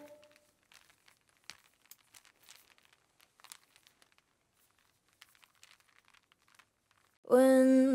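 The last note of a song fades out, then near silence with faint scattered clicks and crackles. About seven seconds in, a girl's voice starts singing a held note with vibrato.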